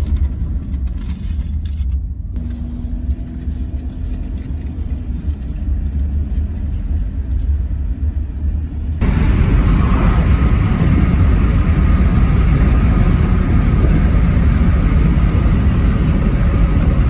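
Road noise inside a moving car: a steady low rumble of tyres and engine, which turns suddenly louder and hissier about halfway through.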